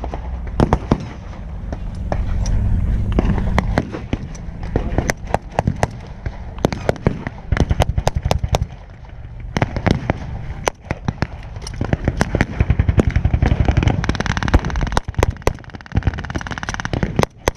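Blank gunfire from WWII-era rifles and machine guns: many sharp shots near and far at irregular intervals, some single and some in quick automatic bursts.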